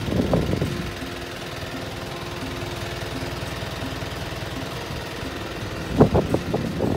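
Toyota Dyna truck engine idling steadily. Bursts of close rustling and knocking sit over it in the first second and again from about six seconds in.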